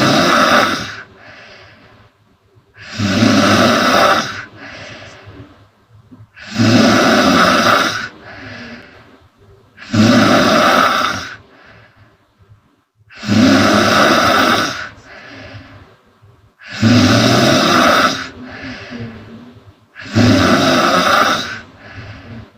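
A sleeping woman snoring loudly in a steady rhythm, about one snore every three and a half seconds, seven in all. Each loud snore lasts just over a second and is followed by a quieter, shorter breath.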